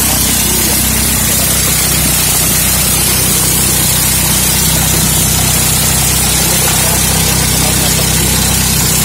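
Engine-driven corn sheller (mesin dros jagung) running steadily: a low engine drone under a loud, even hiss. The hiss is the shelling of the cobs being tipped into its hopper.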